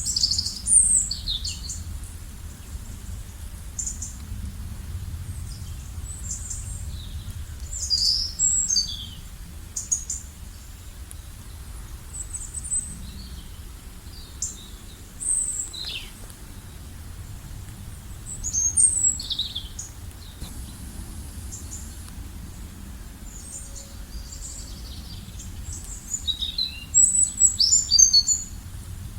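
Wild birds chirping and calling in short, scattered high phrases, with a busier cluster of calls near the end, over a steady low rumble.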